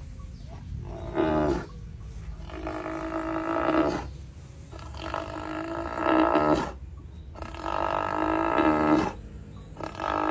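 A cow making a snoring sound over and over: five drawn-out pitched calls about two and a half seconds apart, over a low rumble.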